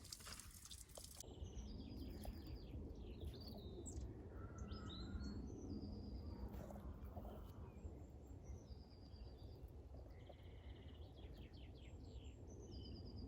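Small songbirds singing and calling, faint, in short repeated phrases and trills that start a little over a second in, over a low background rumble.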